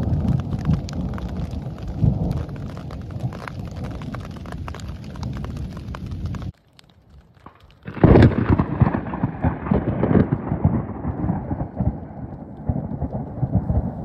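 Thunder rumbling through a thunderstorm, breaking off about six and a half seconds in. After a short near-silent gap, a sudden loud thunderclap about eight seconds in from close lightning rolls on and slowly fades.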